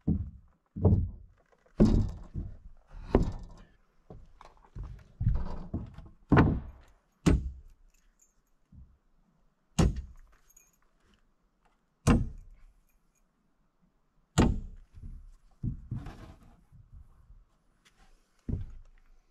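Framing lumber knocking and thudding on a wooden plank floor as 2x4 studs are set in place, with sharp hammer strikes nailing them. It is a string of separate wooden impacts a second or two apart, some heavy and some sharp.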